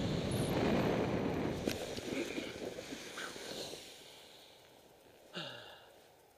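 Wind rushing over the microphone during a paraglider's landing, fading away over about four seconds as the pilot slows to a stop, with a few light knocks. Near the end, a short breathy vocal sound that falls in pitch.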